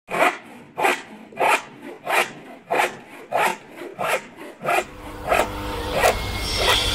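Rhythmic rasping strokes, about eleven of them, roughly one every two-thirds of a second. From about five seconds in a steady low hum rises underneath and the strokes grow fainter.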